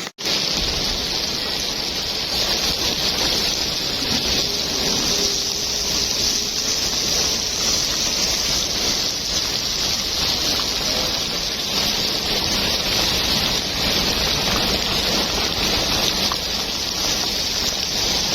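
Heavy rain falling, a steady, even wash of noise.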